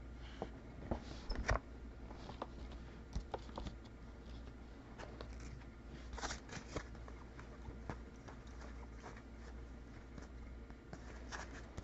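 Faint rustling and scattered light clicks of Bowman's Best baseball trading cards being handled and flipped through by hand.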